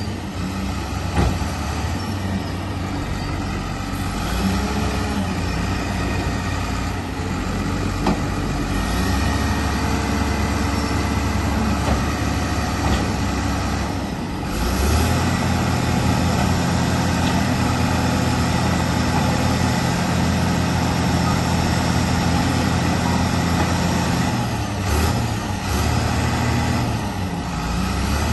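Caterpillar D5M XL crawler dozer running and travelling, its diesel engine working steadily with a few sharp clanks from the moving tracks. The engine gets louder about halfway through.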